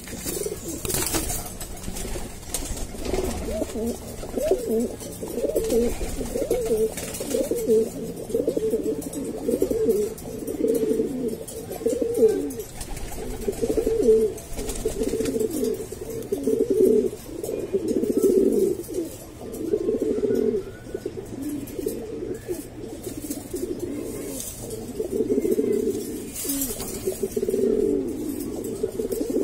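Domestic pigeons cooing, a male's courtship coo repeated over and over in low pulsing phrases with a few short pauses.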